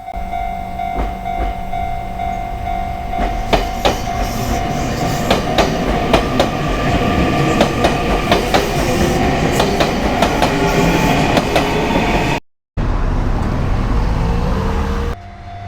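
Japanese level-crossing alarm ringing its repeating 'kan-kan' while a train passes over the crossing, its wheels clicking over the rail joints in quick, building succession. The sound cuts out briefly near the end.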